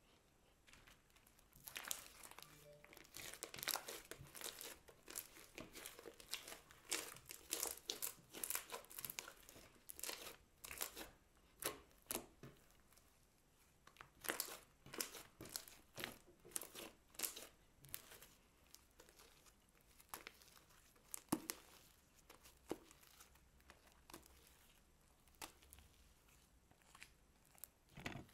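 Glitter slime being stretched, folded and kneaded by hand: a run of soft, sticky crackles and clicks as it pulls apart and presses together. The clicks start about two seconds in and thin out for the last several seconds.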